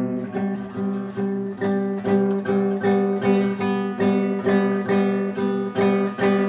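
Acoustic guitar strummed in a steady rhythm, the same chord repeated about two to three strums a second, as the song's intro.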